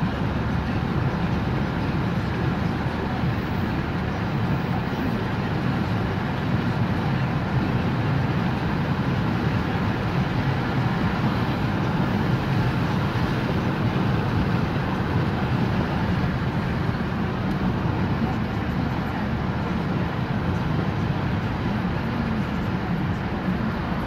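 Steady road and engine noise inside the cabin of a car driving at speed on an asphalt road, a deep, even rumble of tyres and engine.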